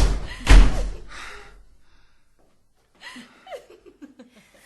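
A person gasping close to the microphone: two loud, sharp breaths in quick succession, then quieter breaths trailing off. After about a second of near silence, faint short vocal sounds with falling pitch.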